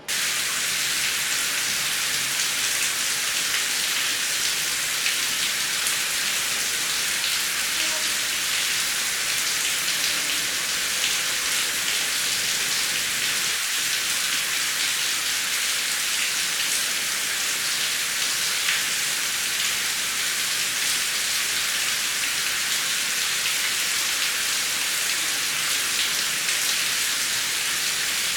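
Heavy rain falling steadily, a dense hiss with fine patters of individual drops. It cuts in abruptly at the start and holds an even level.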